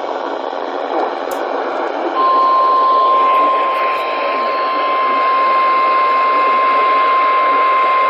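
Weather radio receiving a NOAA Weather Radio broadcast: static-laden hiss, then about two seconds in the 1050 Hz warning alarm tone comes on, one steady pitch held under the hiss. The tone signals that a warning, here a flash flood warning, is about to be read.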